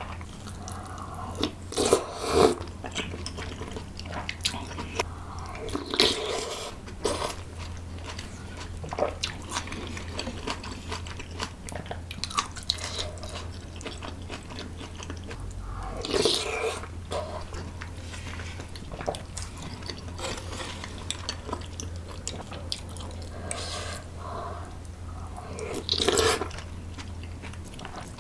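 Close-miked eating sounds: chewing and biting food, with crunches and wet mouth sounds. There are louder bites or slurps at about 2, 6, 16 and 26 seconds in.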